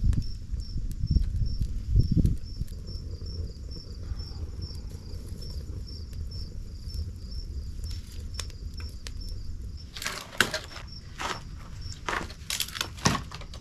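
An insect chirps steadily at about two to three pulses a second over a low rumble, with a few thumps in the first couple of seconds. About ten seconds in comes a run of sharp cracks and snaps as sticks are handled and added to a campfire.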